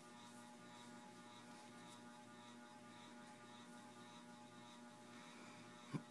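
Near silence with a faint steady electrical hum and one soft click near the end.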